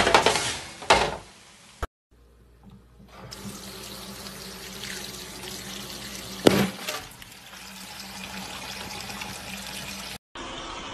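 A few loud crashing noises in the first second or so, then a kitchen tap running steadily into a metal sink, the water splashing over food held under the stream, with a single sharp knock about halfway through.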